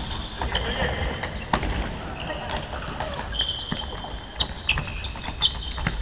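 Indoor futsal play on a wooden gym floor: sneakers squeaking in short high squeals as players turn, mixed with sharp knocks of the ball being kicked and bouncing, and players calling out.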